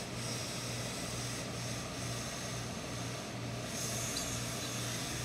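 Steady low hum and hiss of a tailor's steam-pressing setup while a hose-fed industrial steam iron is worked over the trouser leg, with the hiss rising briefly about four seconds in.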